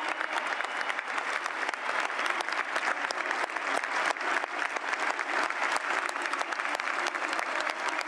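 A large stadium crowd applauding, with one person's hand claps close by as sharp, rapid claps over the crowd.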